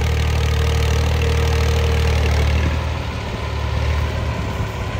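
Massey Ferguson 240 tractor's three-cylinder diesel engine running steadily under load while pulling a zero-till seed drill, with a deep, even hum. Its note changes a little past halfway.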